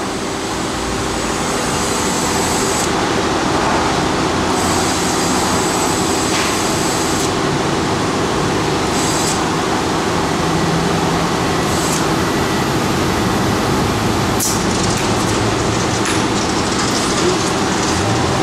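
Compressed air hissing in stop-start bursts from a tire inflator chuck on the valve stem as a tire is aired up, over a steady loud rush of background noise.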